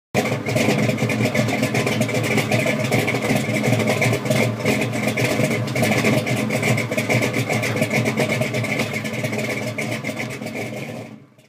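Engine of a 1987 Chevrolet Monte Carlo SS pro street car running at a steady, loud level, then fading out near the end.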